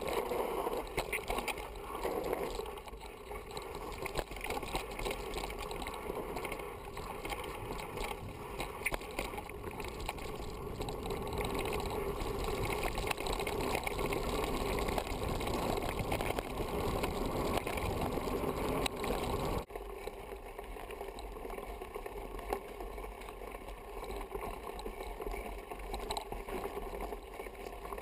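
Mountain bike riding noise on a dirt trail: wind rushing over the onboard camera's microphone, with the tyres and bike rattling over the rough ground. The sound changes abruptly about two-thirds of the way through.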